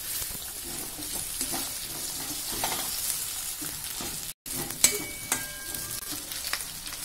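Green peas frying in oil in a metal kadai, sizzling, while a flat metal spatula stirs them and scrapes against the pan. The sound cuts out for a moment a little past halfway, and a sharp clack follows just after.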